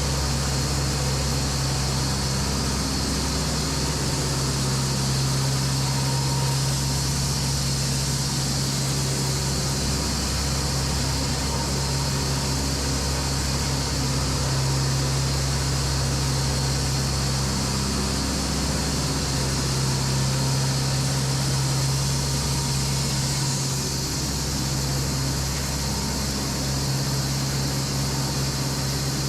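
Production sawmill machinery running continuously: a loud, steady low hum over a constant mechanical drone, with no distinct starts or stops.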